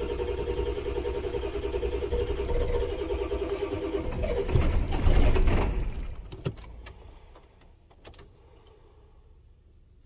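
Starter cranking a 7.3 L Power Stroke V8 diesel that does not fire even as injection control pressure builds to about 3,700 psi, a sign of air in the high-pressure oil. The cranking grows louder briefly, then stops about six seconds in, followed by a couple of faint clicks.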